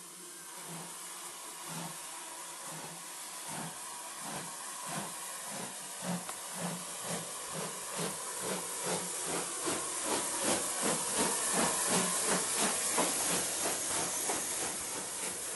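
USA dock tank (USATC S100 0-6-0T) steam locomotive pulling away with a train: steady steam hiss under exhaust chuffs that quicken from about two to three a second and grow louder as it gathers speed and passes.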